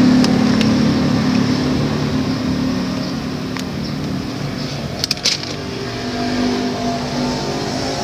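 An engine running steadily, its low hum easing off a little and then swelling again near the end, with a few short clicks, a cluster of them about five seconds in.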